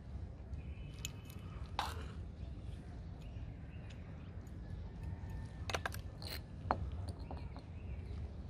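Light clicks and taps of a small steel tool and a brass plate being handled on a concrete surface: one about two seconds in, then a quick cluster a little past the middle, over a steady low background rumble.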